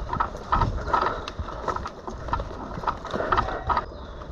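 Footsteps of a person moving quickly over the ground, each step a thud with a rattle of gear, in an uneven rhythm that eases off near the end.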